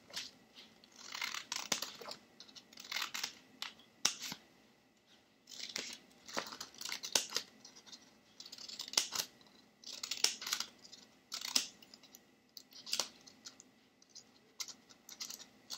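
Scissors cutting a series of slits into a folded sheet of paper. A short crisp snip-and-slide burst, with sharp blade clicks, comes about every one to two seconds, roughly ten cuts in all.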